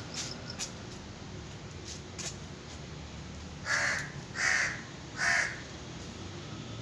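A crow cawing three times in quick succession, about three-quarters of a second apart, each caw about half a second long; the crow is calling for food.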